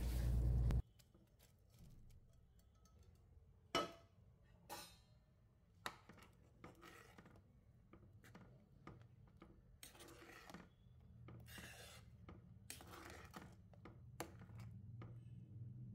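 Spatula scraping against a pan as scrambled egg is pushed off it into curry gravy, loudest in the first second, then a few faint scrapes and knocks of the spatula on the pan over a faint low hum.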